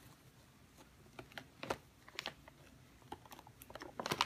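Plastic candy bag crinkling in scattered sharp clicks as a Siamese cat noses into it, the clicks coming quicker and closer together near the end.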